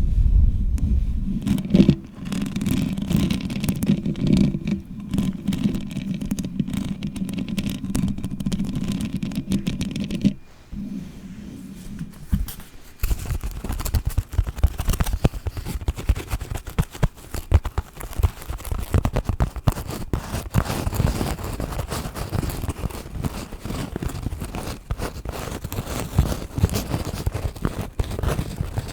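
Long fingernails scratching and rubbing right on a microphone. For about the first ten seconds the rubbing is dense and muffled. From about thirteen seconds in it turns into rapid, crisp scratching strokes.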